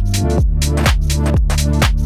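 Electronic background music with a steady kick-drum beat about two a second.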